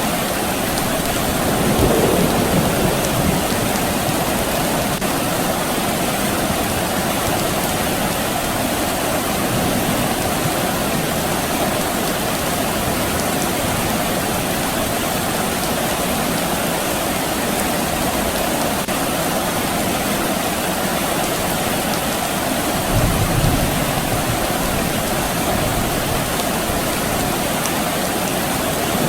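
Steady soft rain falling, a constant even hiss. A brief low swell comes about two seconds in, and another about three-quarters of the way through.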